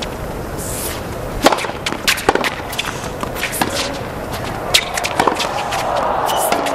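Tennis ball struck by rackets and bouncing on a hard court during a rally: a series of sharp, separate hits starting about a second and a half in, with shoe scuffs, over steady crowd murmur that swells near the end.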